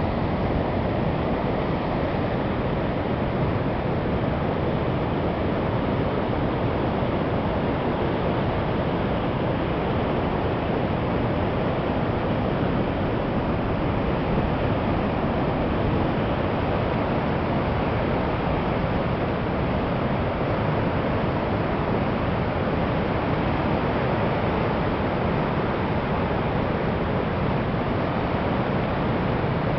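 Steady rush of white water from a large river waterfall and rapids, an even, unbroken noise that does not change.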